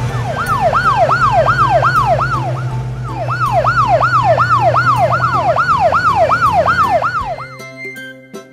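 Police vehicle siren in a fast yelp, rising and falling about three times a second over a steady low engine hum. It breaks off briefly about three seconds in and stops near the end, where a light musical jingle starts.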